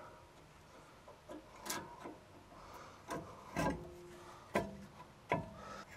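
A few short scrapes and clicks, spaced out, as a new rear brake pad is slid into the greased abutment clips of a Ford F-150's rear caliper bracket.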